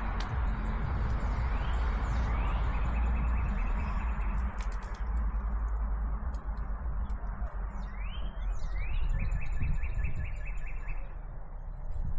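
A songbird sings twice: a couple of quick rising notes, then a fast, even trill. A steady low rumble and scattered small clicks run underneath.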